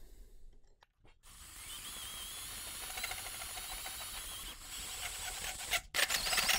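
Ryobi cordless drill on low speed driving a hole saw through 1/8-inch-wall steel box tube lubricated with cutting oil. A steady grinding cut with a thin high ring starts about a second in, breaks off for a moment near the end and picks up again.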